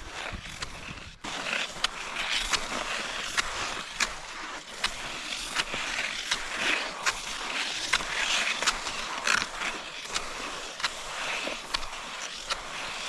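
Cross-country skis sliding and scraping along a packed, tracked snow trail: a steady hiss with short sharp ticks from the strides and pole plants about twice a second.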